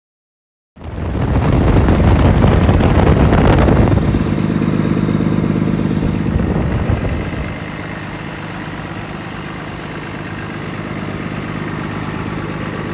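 Cummins ISB 6.7 inline-six turbodiesel running: it comes in abruptly about a second in, is loudest for the first three seconds, eases off around four seconds in and settles to a steady idle by about eight seconds.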